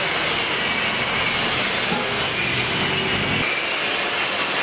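Automatic packing machine for fried shallots running: a steady mechanical hiss with a low hum underneath that drops out about three and a half seconds in.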